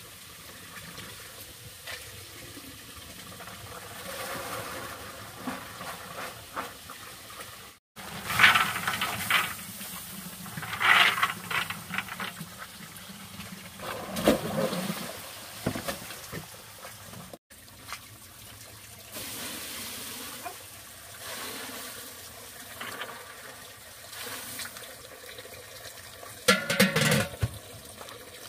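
Water running and splashing, with louder splashes now and then.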